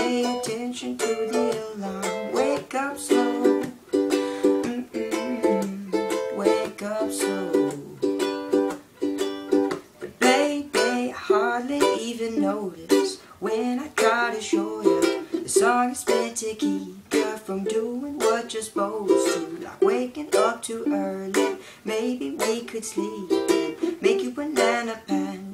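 Solo ukulele played without singing: an instrumental passage of quickly plucked melody notes mixed with strums.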